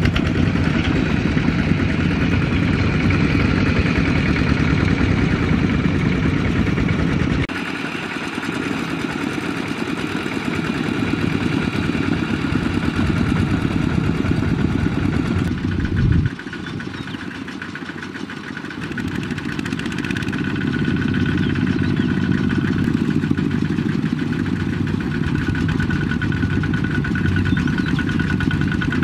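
Kubota two-wheel walking tractor's single-cylinder diesel engine running steadily, pulling a trailer loaded with rice sacks. Its level drops about a quarter of the way in, and again after a brief loud surge near the middle, then builds back up.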